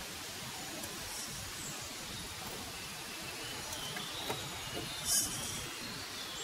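Reely Free Men RC crawler's electric motor and gears whining faintly as it creeps over the creek rocks, over a steady outdoor hiss, with a few soft clicks and a brief hissing burst about five seconds in.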